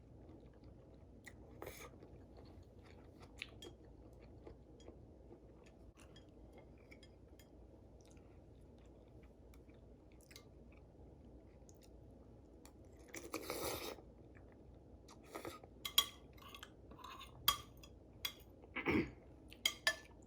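Close-up mouth sounds of someone chewing a mouthful of cheesy spicy noodles, mostly soft with small wet clicks. A louder, longer noisy sound comes about two-thirds of the way through, followed by a run of sharp clicks near the end.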